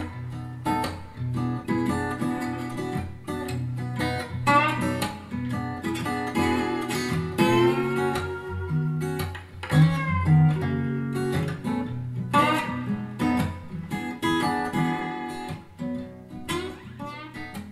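Acoustic blues guitar music, plucked and strummed, played back through a pair of Sharp CP-C411H bookshelf speakers and picked up by a microphone in the room. It gets quieter near the end.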